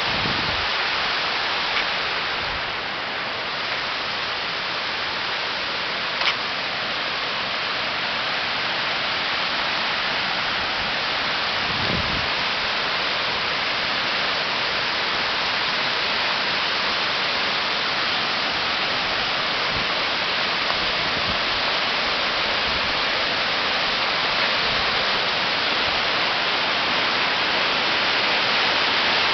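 Mountain stream rushing over rocks, a steady, even wash of water noise, with a single short click about six seconds in.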